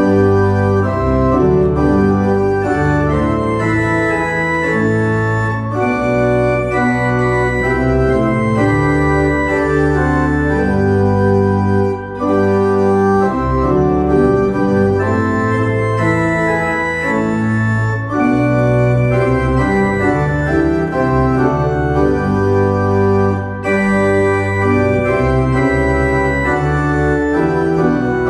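Church pipe organ playing a hymn tune in full held chords over a low pedal bass, the chords changing about once a second. There are short breaks between phrases about 12 and 24 seconds in.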